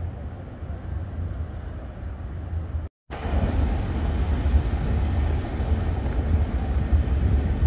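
City street noise: a steady low rumble of traffic. It cuts out for a moment about three seconds in and comes back a little louder.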